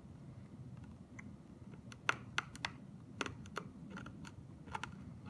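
Faint, irregular clicks of a hard fruit candy knocking against teeth as it is sucked and moved around the mouth, a handful of sharp ticks starting about two seconds in.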